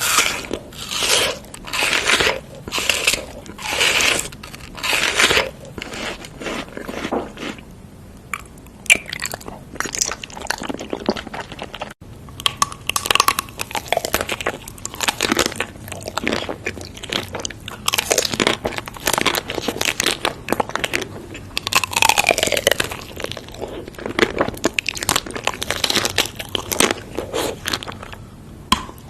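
Close-miked chewing of crunchy food: loud crisp crunches as it is bitten and chewed, evenly paced at first and denser and more irregular later.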